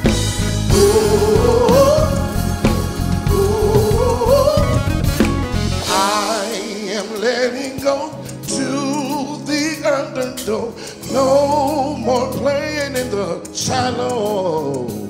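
Background music: a gospel-style song with singing over drums and bass. About six seconds in, the drums and bass drop out, leaving the voice over lighter accompaniment.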